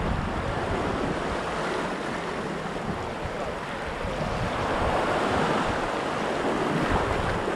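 Sea waves washing against the rocky shore, with wind buffeting the microphone; a steady wash that swells a little midway.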